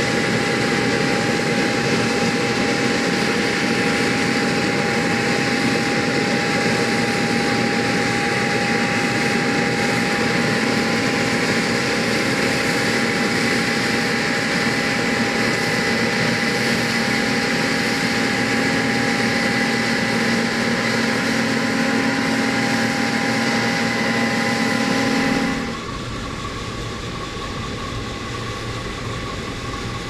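John Deere 9780i CTS combine harvester running under load while harvesting rice: a loud, steady machine noise with constant high whining tones from the drives and threshing machinery. About 25 seconds in it drops to a quieter, lower hum.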